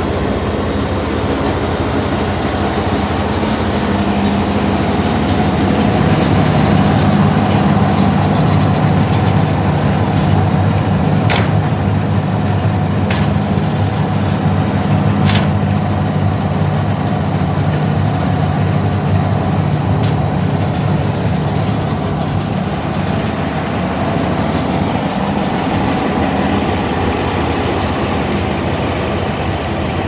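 2017 Vermeer towable wood chipper's engine running steadily at one constant speed. A few sharp clicks come over it about halfway through.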